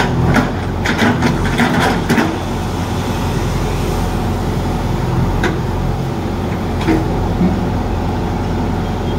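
JCB 3DX backhoe loader's diesel engine running steadily as the backhoe digs, with several short, sharp knocks in the first two seconds and a couple more later on.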